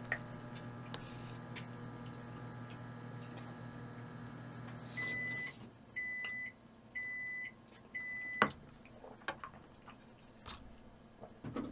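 Microwave oven running with a steady hum, then four short high beeps about a second apart, the end-of-cycle signal, with a click as the beeping ends.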